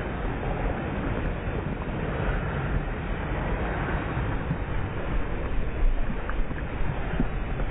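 Wind buffeting the microphone of a head-mounted GoPro, a steady rushing noise with a low rumble.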